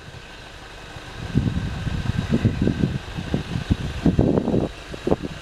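Wind buffeting the microphone in irregular low rumbling gusts, quieter for about the first second, then gusting hard again.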